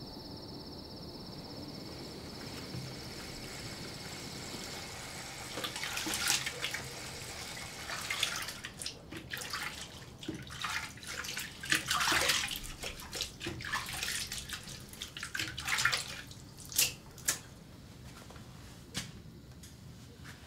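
Water splashing and running at a bathroom sink in irregular bursts, as someone washes at the basin; the splashing is busiest around the middle and trails off into a few last splashes. Before it, night insects chirr steadily at a high pitch for the first few seconds.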